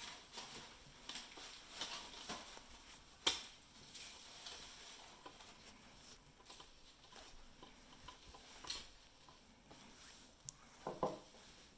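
Faint, scattered small clicks and taps of hands working on a laptop's screen panel and its screws, with one sharper click about three seconds in.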